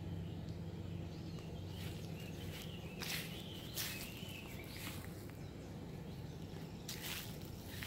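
Outdoor ambience: a few short bird chirps and a wavering bird call over a low, steady hum.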